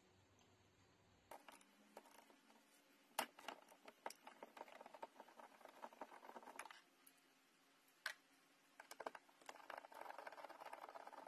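Faint clicking and scraping of a screwdriver and fingers on the Seat Leon's plastic door trim, in two spells with a sharper click about three seconds in.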